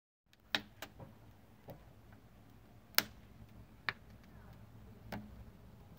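Wood fire burning in an open fireplace, crackling with irregular sharp pops, the loudest about halfway through.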